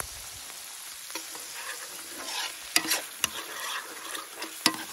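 Brown shrimps in a butter and white wine sauce sizzling in a wide black metal pan while a metal spoon stirs them, with a few sharp clinks of the spoon against the pan in the second half.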